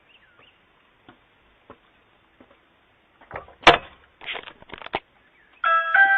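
A person falling, picked up through a doorbell camera's microphone: a single sharp thud about two-thirds of the way in, followed by a second or so of scuffling and knocks. Near the end a doorbell chime begins.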